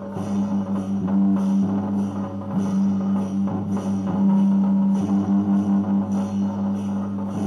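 Background music with drums keeping a steady beat, about two strokes a second, over a held low note.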